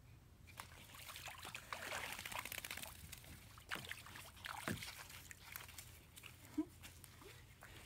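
Plastic kayak hull being dragged from shallow water up onto sand: water sloshing and trickling off it and the hull scraping, with scattered small knocks. The sound is loudest in the first half.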